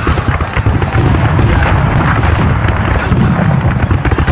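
Battle sound effect: a dense, continuous crackle of many gunshots over a steady low rumble.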